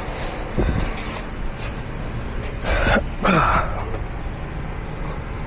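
A man's two heavy breathy exhalations, the second with a short voiced grunt, about three seconds in, over a steady background hum.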